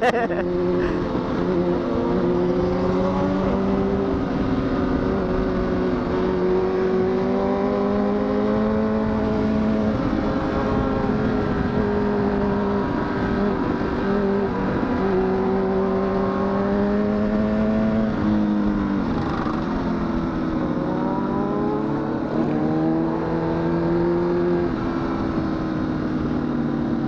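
Honda CBR1000RR (SC57) inline-four engine running at steady road speed. It eases off about two thirds of the way through and then picks up again.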